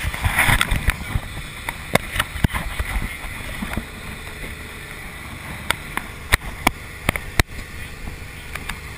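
Motorboat under way at speed: a steady low rumble of engine, wind and water, with a gusty rush in the first second. Sharp clicks and knocks, several close together in the second half, come from the GoPro being handled and turned.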